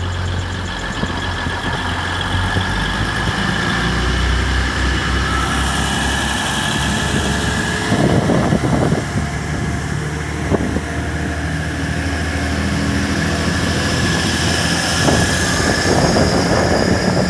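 Class 180 diesel multiple unit's underfloor diesel engines running, a deep steady drone that swells lower a few seconds in, with a few knocks in the second half.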